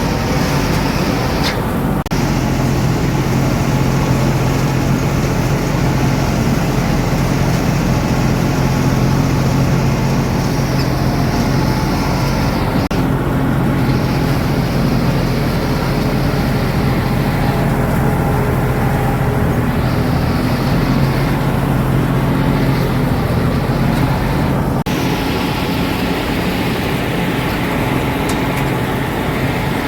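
John Deere combine harvester working: its engine and machinery run with a steady drone and a constant hiss that shifts abruptly a few times.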